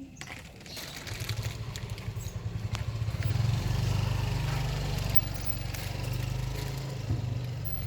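A vehicle engine running close by, growing louder over the first three seconds and then holding steady.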